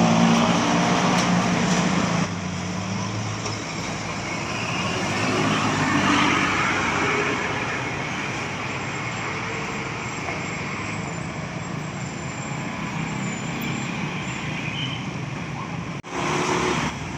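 Buses and other road traffic passing, with one louder pass about six seconds in. A steady sound with several held pitches stops abruptly about two seconds in, and a short louder burst comes near the end.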